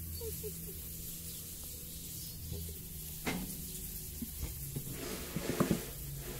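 Soft rustling and clicking over a low steady hum: one sharp click about three seconds in, then a quick cluster of small clicks and rustles near the end.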